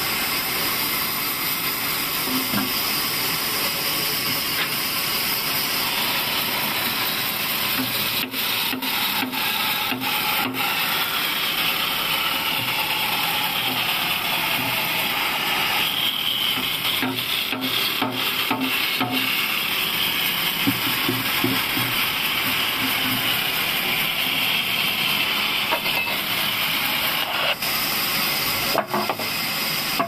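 Large vertical band saw resawing a pine board lengthwise: a steady hiss of the blade cutting through the wood, with a faint high whine that drifts in pitch through the middle of the cut.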